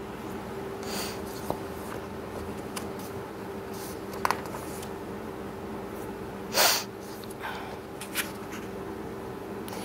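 Quiet room tone with a steady hum, broken by a few short breaths through the nose close to the microphone, the loudest about six and a half seconds in.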